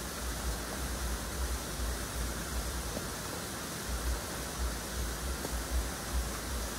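Outdoor ambience: a steady, even hiss with wind rumbling on the microphone in uneven gusts.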